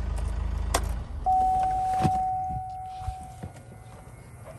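Chevrolet van's 2.8-litre Duramax four-cylinder turbodiesel idling, then shut off about a second in, its hum stopping. A single warning chime follows and fades over about two seconds, and a door knock comes at the very end.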